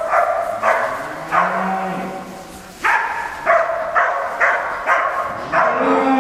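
Westerwälder Kuhhund herding dog barking over and over, about two sharp barks a second, as it drives cattle. A Limousin cow gives a long, low moo that rises and falls about a second in, and another moo comes near the end.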